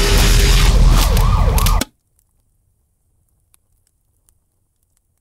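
A siren wailing up and down over a loud, steady rumble of noise, with everything cutting off suddenly a little under two seconds in.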